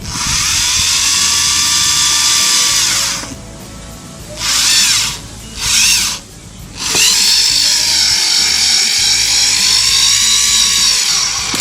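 Foster FSD-010 corded power screwdriver's motor whining as it drives screws: a run of about three seconds, two short bursts, then a longer run of about five seconds, its pitch rising as it spins up and dropping as it stops.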